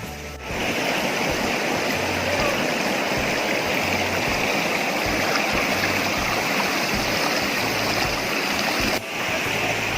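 Steady rushing of flowing water from a stream or falls. It starts suddenly about half a second in and briefly drops away near the end.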